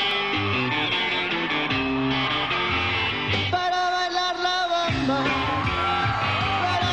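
Rock-style background music with guitar and singing; the bass drops out for about a second and a half in the middle while a held sung note continues.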